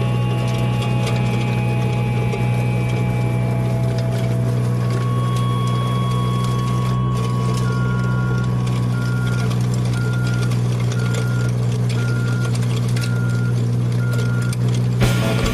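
Mini skid steer engine running steadily; from about halfway its reversing alarm beeps about once a second.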